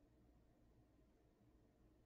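Near silence: faint steady room tone with a low hum.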